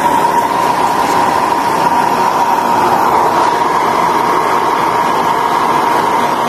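Handheld electric hair dryer running steadily: a loud rush of air with a thin whine through it, drying a freshly bathed cat's fur.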